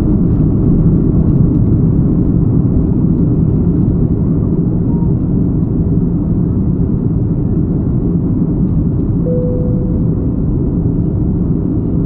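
Aeroplane taking off: a loud, steady low rumble of engines and airflow with no rise or fall, and a brief steady tone about nine seconds in.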